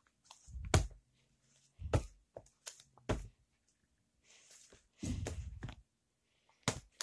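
Paperback books being picked up and set down on a bedspread: several soft, short thuds spread out, with a longer stretch of rustling about five seconds in.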